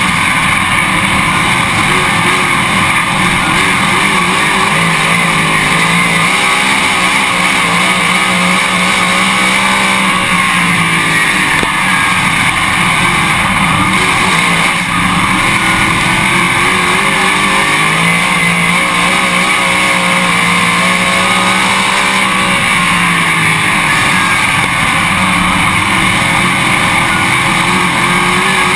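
Late model race car's V8 engine running hard at racing speed, heard onboard the car. Its pitch sags and climbs again twice as the car goes through the turns and back onto the throttle.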